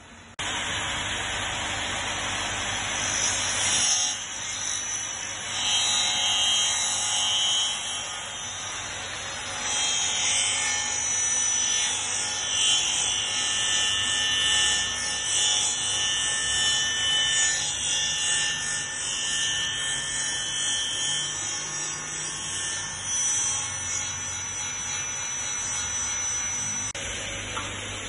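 KD 305 portable miter saw for aluminium, its motor running and its blade cutting aluminium profile. It starts suddenly just after the beginning, with a high whine that comes and goes as the level rises and falls with the cuts.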